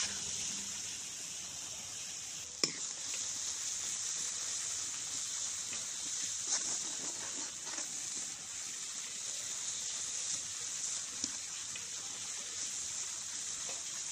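Chopped tomatoes frying in mustard oil in a steel kadhai, a steady sizzle as the tomato masala base is cooked down. A steel ladle stirs it, with a few sharp clicks, the clearest about two and a half seconds in.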